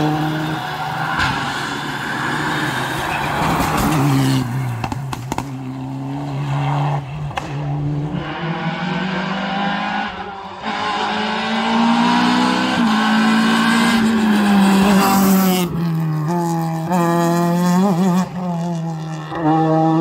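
Rally car engines, among them a Peugeot 208's, revving hard at full throttle. The pitch climbs and drops through repeated gear changes as the cars accelerate along a tarmac stage.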